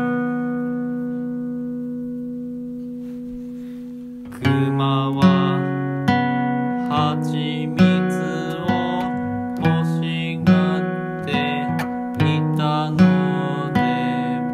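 Acoustic guitar music. A chord rings out and fades for about four seconds, then picked notes and strummed chords resume at a steady, unhurried pace.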